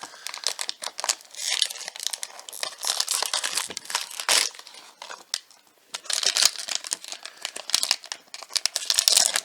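Crinkly blind-box packaging being handled and torn open by hand, in uneven bursts of rustling and tearing with a short lull about halfway through.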